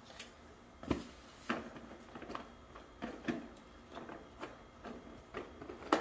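Plastic string-light bulbs and their cable being handled in a cardboard box: a series of irregular light clicks and knocks as the bulbs bump against each other and the box, the sharpest about a second in and just before the end.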